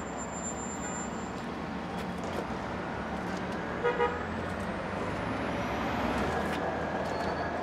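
City street traffic noise, with a car horn tooting twice in quick succession about four seconds in.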